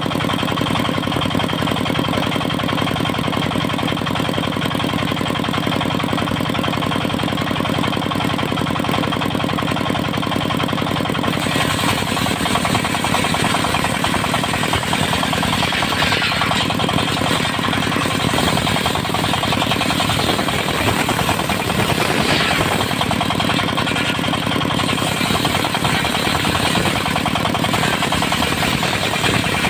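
Engine-driven circular sawmill running steadily. About eleven seconds in, a harsher, hissier sound joins and stays over the engine.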